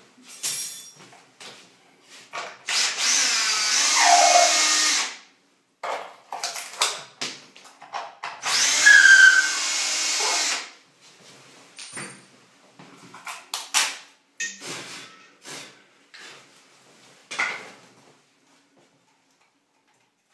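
Cordless drill run in two bursts of about three seconds each, its motor pitch sliding as the trigger is eased. Short clicks and knocks of handling come between and after the bursts.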